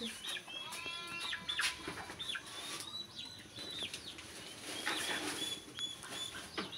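Chickens calling: a scattered series of short, high calls.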